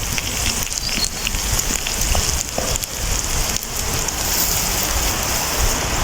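Sausages sizzling as they fry, a steady hiss full of small crackles and spits.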